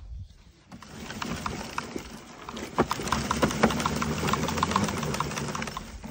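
Gardena manual leaf collector pushed over grass, its wheel-driven brush roller clattering with many quick clicks as it sweeps leaves into the basket. It starts about a second in and gets louder.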